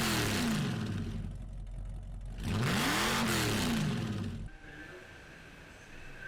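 An engine revved twice, about two and a half seconds apart, each rev rising and falling in pitch with a loud rushing exhaust noise, then dropping to a much quieter background.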